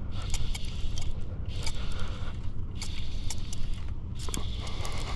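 Fly reel being cranked in spurts of about a second with short pauses, a whirring, clicking ratchet, while line is brought in on a hooked fish. Wind rumbles on the microphone throughout.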